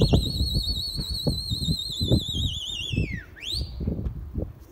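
A pigeon flyer's loud, high whistle to the circling flock: a held note that warbles, drops steeply in pitch about three seconds in, then a short rising whistle. Irregular low rumbling runs underneath.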